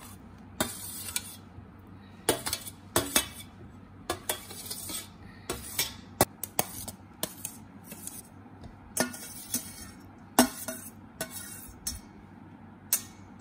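Steel spoon scraping and clinking against a stainless steel plate in irregular strokes, pushing sticky candied watermelon-rind cubes off onto another plate.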